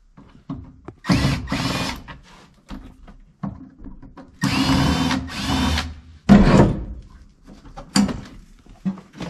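Power drill backing out the screws of a car's kick panel in short whirring runs: two quick runs about a second in, two longer ones from about four and a half seconds in, then a knock.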